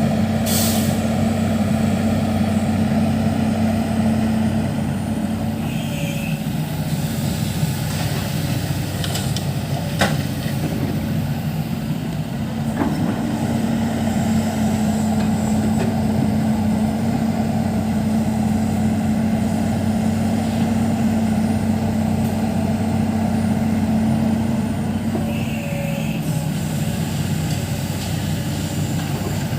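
Diesel engine of a Matador ME210LC excavator running steadily with an even hum, broken by a few short knocks.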